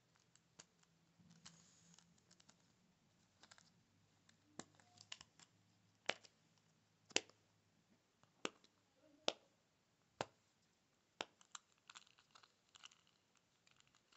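Silicone bubbles of a pop-it fidget spinner being pressed in by a finger, giving a string of sharp single pops and clicks at uneven intervals, about one a second. Near the end the clicks come faster and fainter.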